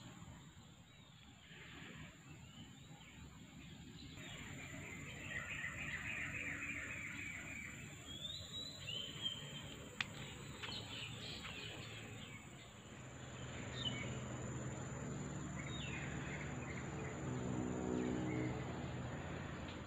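Birds chirping and calling over a steady high insect whine. In the second half a low, even motor hum rises and becomes the loudest sound.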